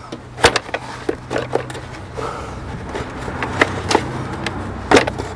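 Sharp clicks and knocks of plastic engine-bay parts being handled and pried as the air intake is dismantled, with a steady low hum underneath.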